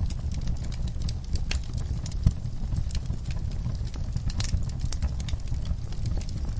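Fire in an outdoor firepit crackling, with irregular pops and snaps and one sharper pop about two seconds in, over a low steady rumble.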